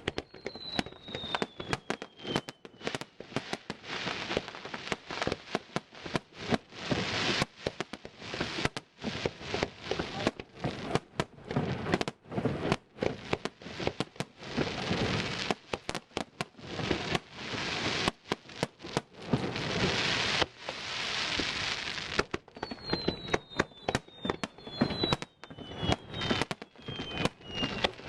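Fireworks display: a rapid string of bangs with long stretches of crackling, and falling whistles at the start and several more near the end.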